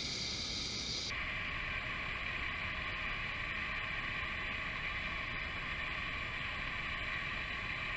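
Jet ski engine running steadily, pumping water up the hose to a flyboard, heard from on board. Its tone changes abruptly about a second in.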